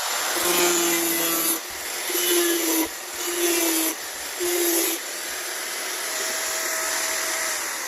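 Angle grinder cutting into a plastic jug in four short bursts, its pitch lower while the disc bites, then running free and starting to spin down near the end.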